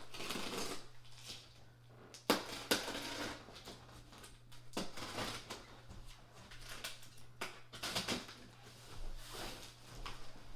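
Cardboard shipping box being handled and opened: irregular scraping and rustling with a few knocks, the sharpest about two seconds in, over a steady low hum.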